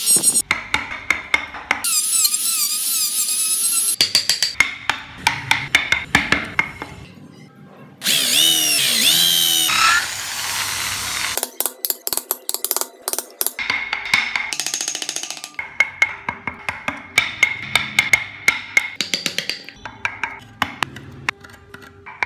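Wood carving chisel and gouge cutting into a wooden block by hand: a long run of sharp cuts, scrapes and taps. Twice, near the start and about a third of the way in, a wavering high-pitched whine sounds over the cutting.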